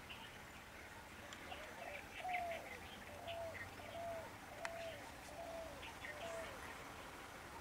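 Birds calling faintly: one bird repeats a short whistled note over and over, about one or two a second, starting about a second and a half in, with scattered higher chirps from other birds.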